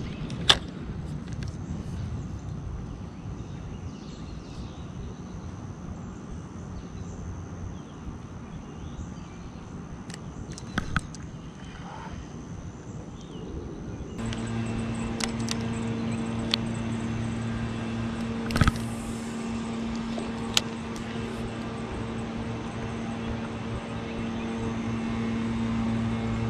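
Outdoor background noise with a few sharp clicks. About halfway through, a steady low mechanical hum comes in and holds to the end.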